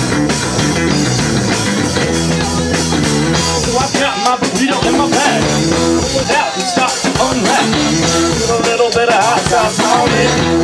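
Live rock trio playing: electric guitar, bass guitar and drum kit. From about four seconds in, a high lead line bends and wavers in pitch above the band.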